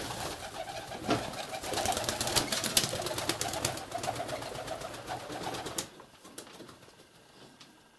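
Domestic pigeons in their loft: a burst of wing flutter and cooing that starts suddenly and dies away after about six seconds.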